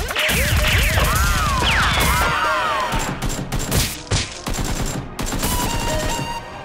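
Rapid automatic gunfire sound effects with falling, whistle-like tones over them. About two to three seconds in, the firing thins into a few separate shots or impacts.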